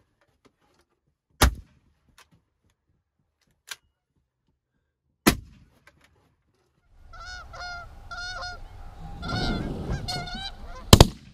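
A few sharp cracks in the first half. From about two-thirds of the way in, Canada geese honk repeatedly in flight over a rushing noise. A loud shotgun shot comes near the end.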